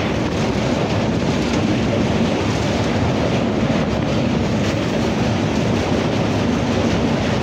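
Godan Express passenger train running at speed over a bridge, heard from the carriage: a steady, even rumble of wheels on rails.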